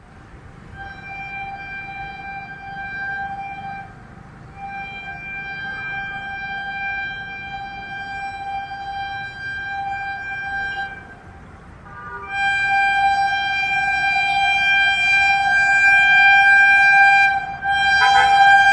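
Shrill horn of a WAG-9HC electric locomotive sounding almost non-stop in three long single-tone blasts, about 3, 6 and 6 seconds long, with short breaks between. The last blast, from about 12 seconds in, is much louder as the locomotive draws near, with a brief clatter near the end.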